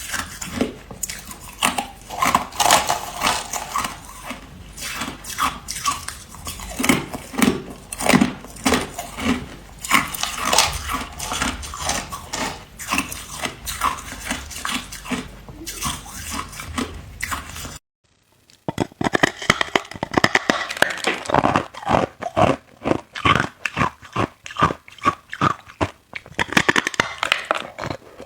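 A person biting and chewing ice close to the microphone: a rapid, uneven run of loud, sharp crunches. It breaks off for a moment about two-thirds of the way in, then the crunching resumes.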